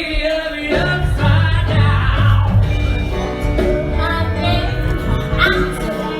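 Music: a woman singing a musical-theatre song over band accompaniment.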